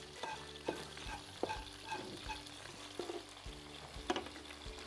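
Chicken frying in a pan, low and steady, with a utensil stirring and tapping against the pan in irregular short clicks.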